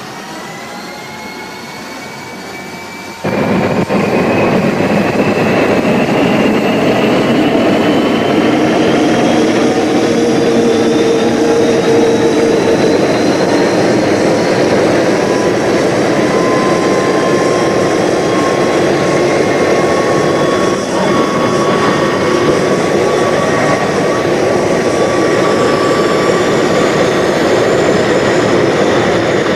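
Jet fighter's engine running up, a steady roar with a whine that climbs slowly in pitch. It gets suddenly louder about three seconds in.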